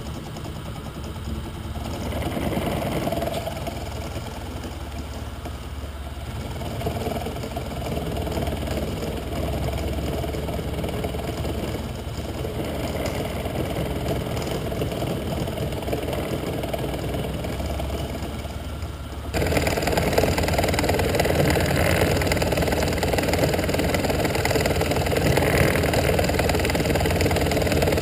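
Titan TM25V milling machine running, its 9 mm two-flute slot end mill cutting a step into a bright mild steel bar: a steady motor and spindle hum under the rasp of the cut. About 19 seconds in, the sound gets suddenly louder.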